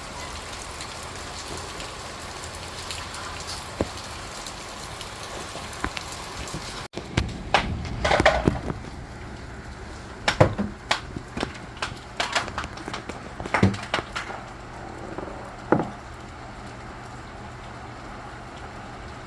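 Steady hiss of heavy rain. It breaks off abruptly about seven seconds in, and an irregular run of sharp knocks and clattering thumps follows.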